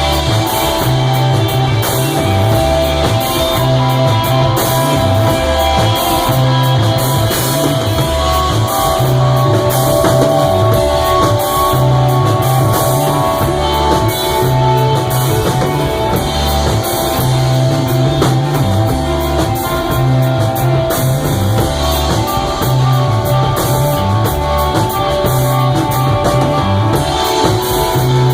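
Live rock band playing loud instrumental music: electric guitar holding long notes over a bass line that steps from note to note, with a drum kit and cymbals keeping time.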